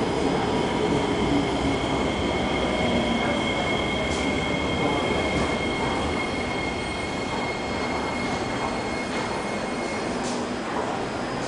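SMRT C151 metro train standing at the platform with its doors open, its equipment running with a steady noise. Over it sits a steady high two-note whine that stops about ten seconds in.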